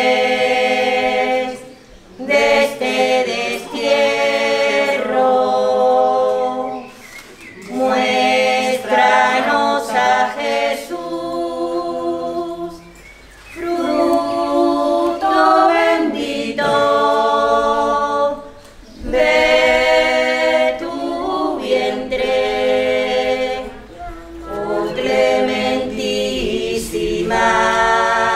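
A choir singing unaccompanied in Spanish: a slow devotional hymn sung in phrases of a few seconds, each followed by a short breath pause.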